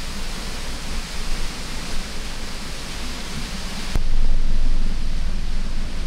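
Steady rushing hiss of moving water, like a waterfall or rapids. About four seconds in it cuts abruptly to a louder, deeper rumbling noise.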